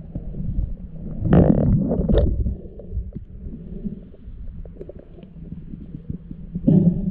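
Muffled underwater sound picked up by a submerged action camera: a steady low rumble of water moving around the housing. It is broken by two louder gushing swells, one about a second in and a shorter one near the end.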